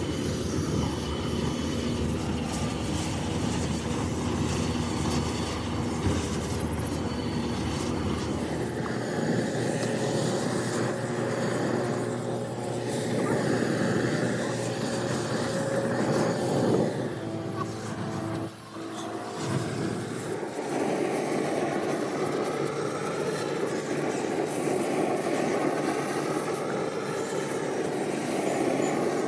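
Steady rumbling roar of a foundry at work, with gas burning off in flames from the vents of freshly poured brake-drum sand moulds. A low hum drops out about a third of the way through, and the roar dips briefly about two-thirds through.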